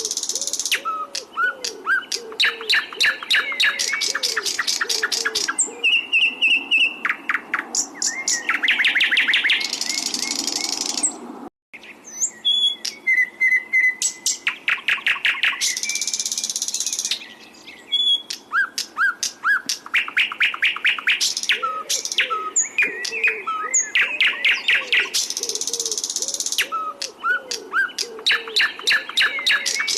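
Songbird singing loud, rapid runs of sharp repeated chirps and whistled notes, with low dove-like coos underneath; it is tutor song of the kind played to train captive white-rumped shamas. The recording drops out for a split second a little before halfway, then the song resumes.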